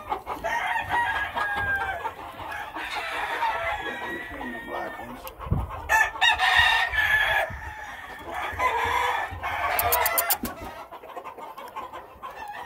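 Several gamefowl roosters crowing over one another, with clucking between the crows.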